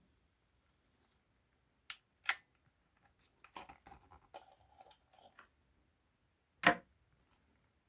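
Clicks of camera handling on a Canon body with the RF 15-35mm F2.8 IS lens: two sharp clicks about two seconds in, a run of softer clicks and rubbing, then a louder single click near the end.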